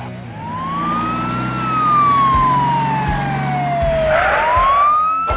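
Emergency-vehicle siren wailing. It rises quickly, falls slowly, and rises again near the end.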